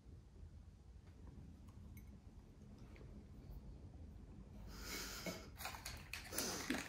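Faint chewing of a chocolate-coated marshmallow biscuit, then from about five seconds in a stretch of noisy breathing with a few small clicks.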